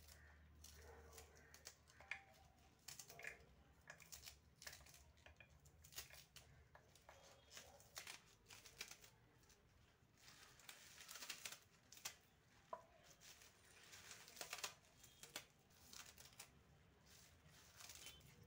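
Faint, irregular crisp snips of a knife slicing through spring onion stalks held in the hand, with the cut pieces dropping into a metal kadhai.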